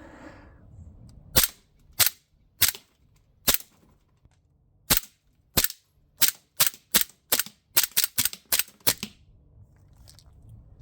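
Cybergun Desert Eagle CO2 blowback BB pistol firing about fifteen sharp shots, each with the metal slide cycling back. The shots come slowly at first, then in a quick string from about six seconds in, and stop about nine seconds in.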